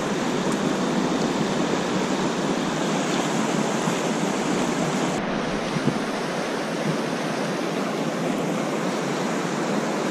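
Steady rush of fast river water over rapids, mixed with wind buffeting the microphone.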